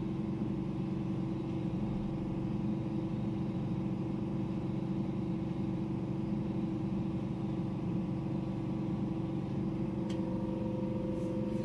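Steady mechanical hum of neonatal intensive-care equipment, such as the high-flow oxygen unit or the warmer's fan, with several fixed tones and no change in pitch; a faint click about ten seconds in.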